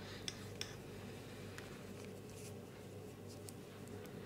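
Faint clicks of knitting needles as stitches are worked, a couple near the start and a few fainter ones later, over a low steady hum.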